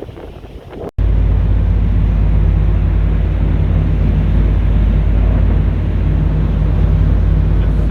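Boat engine running steadily as a loud, even low rumble, with wind on the microphone; it starts suddenly at a cut about a second in.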